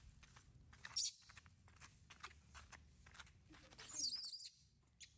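Faint taps and scuffs of baby macaques moving about on the ground, with a sharp click about a second in and a brief high-pitched squeak about four seconds in.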